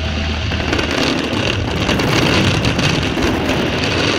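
Fireworks finale: a dense, steady crackle of many comets, fountains and aerial shells firing at once, with a low rumble underneath.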